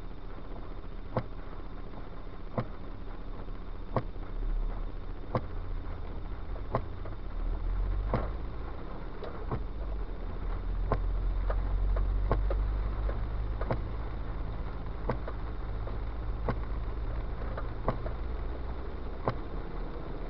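Inside a car in the rain: windshield wipers sweeping, with a short click or thump about every one and a half seconds. Under it the car's engine and its tyres on the wet road give a low rumble that swells as the car pulls away, loudest about twelve seconds in.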